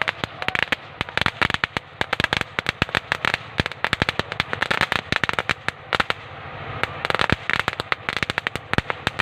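Fireworks going off as a dense, irregular rattle of sharp crackling pops, many every second, without a break.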